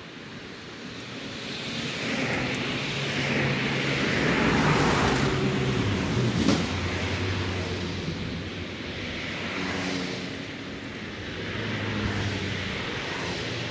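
Road traffic passing: a vehicle's engine noise swells and fades, its pitch dropping as it goes by about five seconds in, and another vehicle swells up near the end. A single sharp click sounds about six and a half seconds in.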